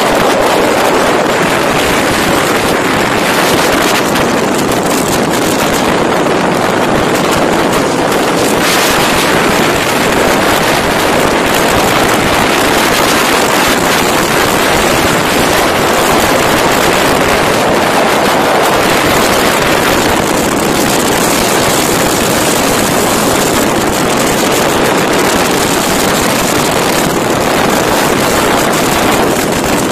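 Steady rush of wind and road noise on a microphone riding on a moving motorcycle at highway speed, with motorcycle engines running beneath it.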